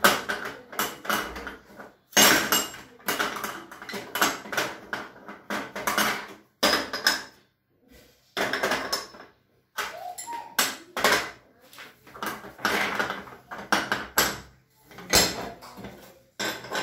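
Metal gas burner caps and rings clattering and scraping on an enamel cooktop as they are handled and wiped, in irregular runs with a few short pauses.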